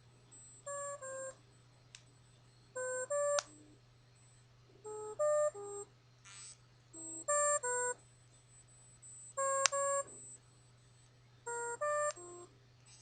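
A mobile phone giving off short electronic melodies of two or three beeping tones at different pitches, repeating about every two seconds: strange, unprompted noises from the handset. A faint steady hum runs underneath.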